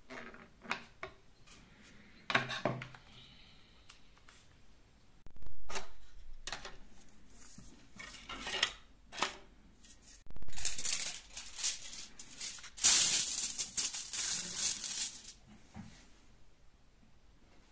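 Workbench handling noise: a few clicks and knocks of small 3D-printed plastic parts, then, about ten seconds in, aluminium foil crinkling for several seconds as a sheet comes off the roll and is crumpled, the loudest sound here.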